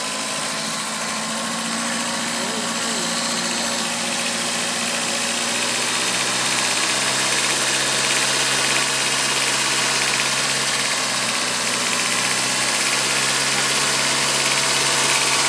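2002 Volkswagen Golf's 1.8T turbocharged four-cylinder engine idling steadily, growing gradually louder; this is the idle the owner is recording for a misfire problem, with oil found on the old spark plugs.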